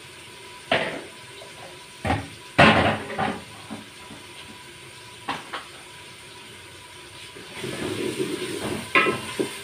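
Kitchen utensils clattering several times, the loudest about two and a half seconds in, then a ladle stirring and scraping onions frying in ghee in a metal pot, over a steady sizzling hiss.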